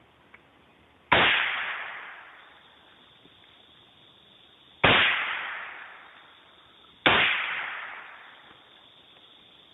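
Three shotgun shots, about a second in, near the middle and two seconds later, each echoing away over about a second and a half.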